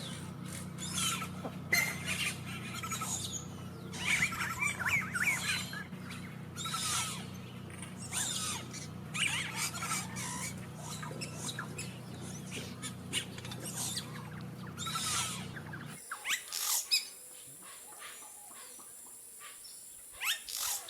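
Yellow-rumped caciques calling, a busy, varied run of loud whistles, chatters and rasping notes, typical of a nesting colony. A steady low hum lies under most of it, then drops away abruptly near the end while the calls go on.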